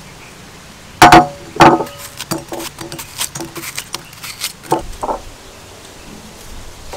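Two loud clinks about a second in, each ringing briefly like glass, then soft clicks and taps as a kitchen knife cuts watermelon into chunks over a glass bowl.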